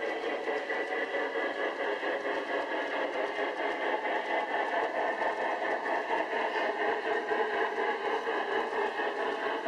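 A large-scale garden-railway model steam locomotive and its train of flatcars rolling steadily along the track, the wheels running on the rails with a faint steady motor-and-gear whine.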